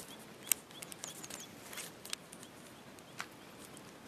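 Outdoor background: a steady hiss with a faint bird chirping in short, evenly spaced notes, and several sharp clicks scattered through, the loudest about half a second in.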